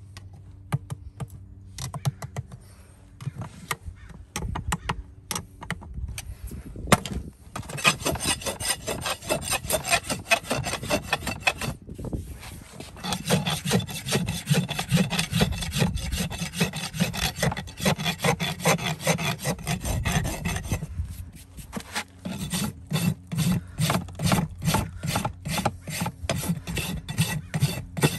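Farrier's flat rasp filing a horse's hoof: dry scraping strokes in rapid succession, after a few seconds of scattered clicks. The strokes pause briefly about three quarters of the way through, then carry on at an even rhythm.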